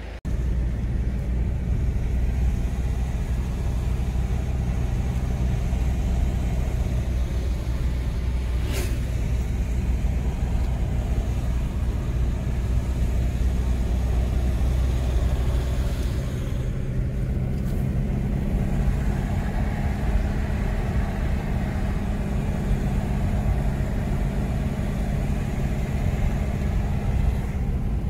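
Car driving along a winding mountain road, heard from inside the car: a steady engine and tyre rumble, with a single sharp click about nine seconds in.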